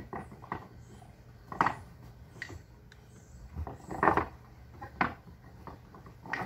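Small wooden pieces knocking and clacking on a wooden deck as a dog noses and mouths them, with a few separate knocks spread through and lighter ticks between.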